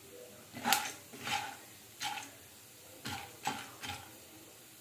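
Metal spoon clinking against a nonstick pan while popcorn kernels in hot oil are stirred: six short knocks with a ringing tone, spread over about three seconds.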